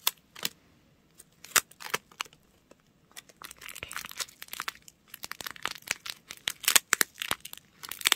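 Clear adhesive tape being pulled off its roll and wrapped around a paper squishy, with sticky rips and paper crinkling. A few separate crackles at first, then about three seconds in a denser run of crackling that lasts to the end.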